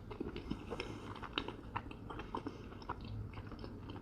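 Close-up chewing of a mouthful of mac and cheese with brisket: soft, irregular wet mouth smacks and small clicks, several a second.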